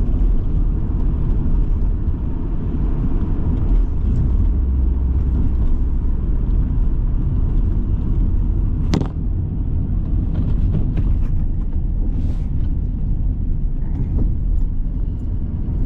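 Inside a moving car: a steady low rumble of engine and road noise, with a single sharp click about nine seconds in.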